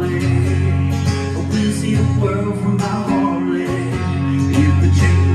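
Steel-string acoustic guitar strummed in a steady rhythm, with a man singing along in a country-rock song.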